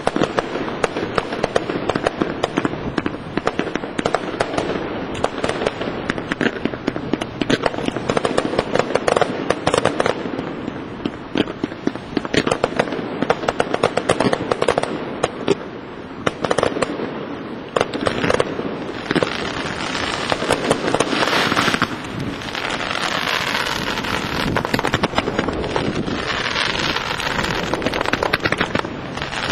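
Professional fireworks display: a continuous rapid run of bangs and crackling from bursting aerial shells. Heavier, hiss-like stretches come about two-thirds of the way in and again near the end.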